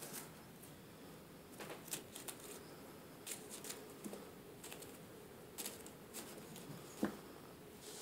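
Faint scratching and rustling of a kitten's paws and claws moving on a bed sheet, a scatter of short scratches with one sharper knock about seven seconds in.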